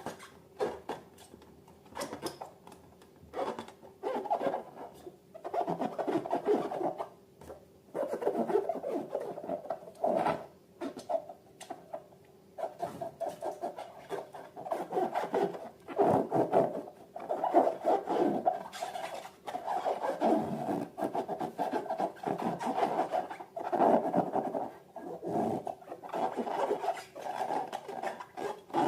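Slime being worked by hand: irregular squishing and rubbing strokes, one after another.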